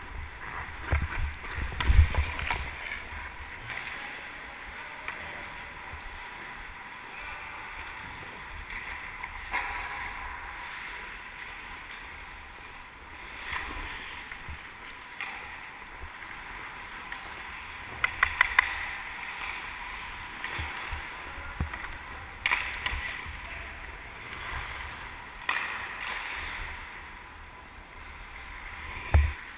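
Hockey skate blades carving and scraping the ice in a steady hiss, with scattered sharp knocks and clacks of stick and puck. The loudest knock is about two seconds in, and a quick run of clacks comes about eighteen seconds in.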